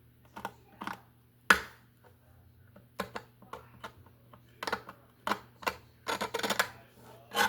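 Irregular sharp clicks and short scrapes of hand-tool work on a wooden mandolin body during crack repair. The loudest is about a second and a half in, with a quick cluster around six seconds in.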